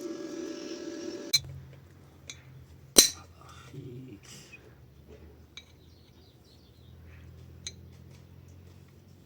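A steady motor hum cuts off suddenly about a second and a half in. It is followed by scattered clicks and clinks of hard parts being handled, the loudest a sharp clack about three seconds in, as the vacuum cleaner is worked on to get it open.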